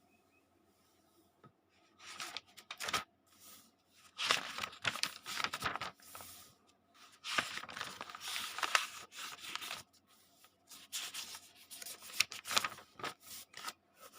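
Paper pages being turned one after another: a series of crisp rustling flips starting about two seconds in, each lasting a second or two.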